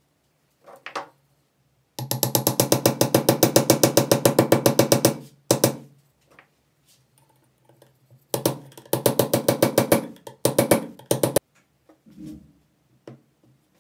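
The gear mechanism of a 1930s IXION hand breast drill, turned by hand, clicking rapidly at about eight clicks a second. It goes in three runs, the first about three seconds long.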